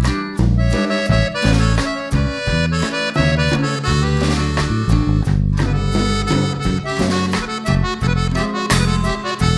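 Background music: an upbeat instrumental with a reedy lead that sounds like harmonica or accordion over guitar and a bass line, with a steady beat.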